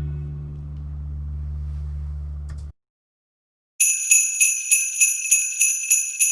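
A bowed string instrument holds a low closing note until it cuts off, then there is about a second of silence. Jingle bells then shake in a steady beat, about three shakes a second.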